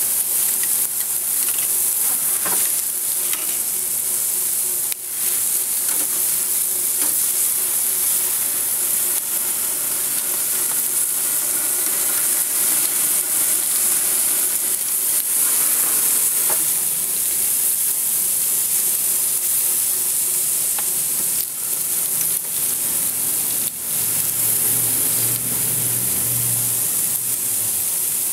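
Vegetables sizzling in a perforated metal grill wok over a barbecue fire as they are stirred with metal tongs, a steady frying hiss. A few sharp clicks of the tongs against the pan.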